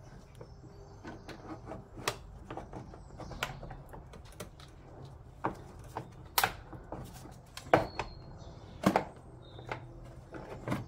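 Hard plastic airbox clicking and knocking irregularly as it is wiggled by hand to work it loose from its mounts, with a few louder knocks in the second half.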